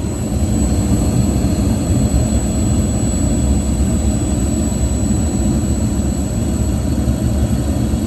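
York gas package unit running in heat on high fire: a steady low rumble of the gas burners and draft inducer fan. The furnace is holding second stage and has not yet dropped back to low fire.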